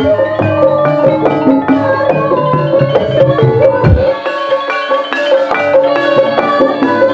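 Live gamelan-style accompaniment for ebeg dance: interlocking mallet-struck metal or bamboo keys playing a quick melody over hand-drum strokes. About four seconds in, a deep low stroke sounds and the low drums drop out for about a second before resuming.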